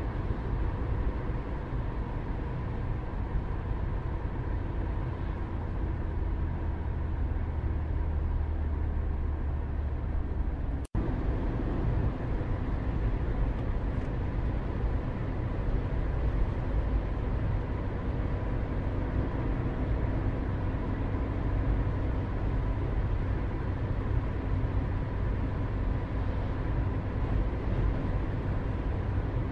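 Steady low rumbling outdoor background noise with a faint steady hum. The sound cuts out for an instant about eleven seconds in.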